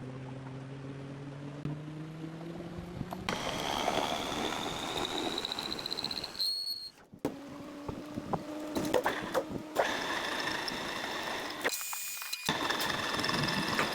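Metalworking machinery running in a series of short edited clips: a motor hum that rises slightly in pitch, then noisier stretches of machining with a high whine that climbs gradually, broken by several abrupt cuts.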